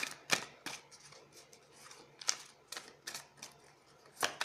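A deck of tarot cards being shuffled by hand: scattered sharp clicks and slaps of cards, turning into a quicker run of clicks near the end.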